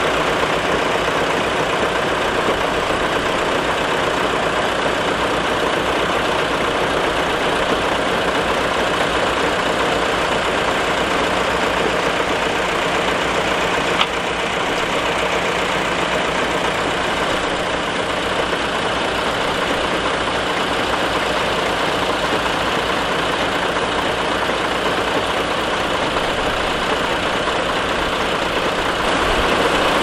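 Heavy diesel engines of a mini crawler bulldozer and a stuck dump truck running steadily. There is a brief click and a slight drop in level about halfway through.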